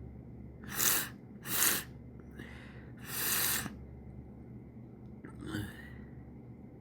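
A person sneezing, with sharp breaths between. There are four breathy bursts in the first four seconds, the two near the start loudest, then a catching in-breath near the end.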